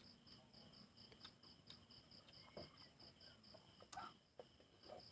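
Near silence with faint insect chirping, a steady pulse repeating about four to five times a second, and a few faint clicks.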